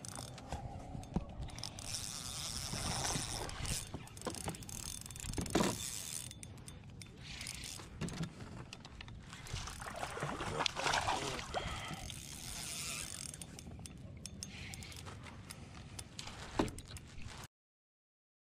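Fishing reel being cranked with ratcheting mechanical clicks and rod-handling knocks while a hooked bass is played on a bent rod. The sound cuts out suddenly near the end.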